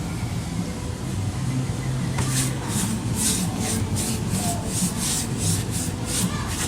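Paintbrush stroking a linseed-oil and paint-thinner mix onto the weathered HDPE plastic body of an ATV. The brush swishes about three times a second, starting about two seconds in, over a low steady hum.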